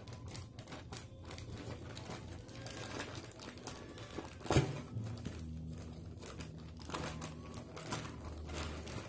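Plastic courier mailer bag crinkling and tearing as it is cut with scissors and pulled open, with a run of small crackles and clicks. There is one sharper, louder snap or thump about four and a half seconds in.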